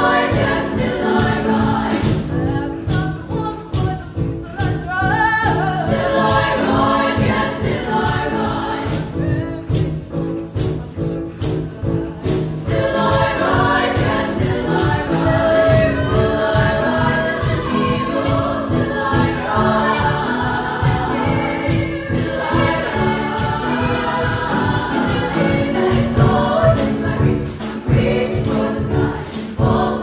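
Women's choir singing in parts over a steady beat of short, sharp percussive hits.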